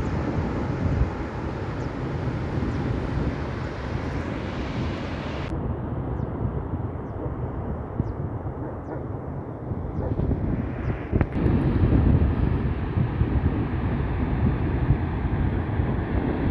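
Wind buffeting the microphone outdoors as a steady low rumble, growing louder about eleven seconds in.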